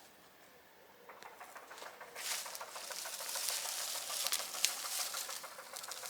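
Rustling and crackling of dry mulch and soil being worked through by hand to uncover potatoes, faint at first and louder from about two seconds in.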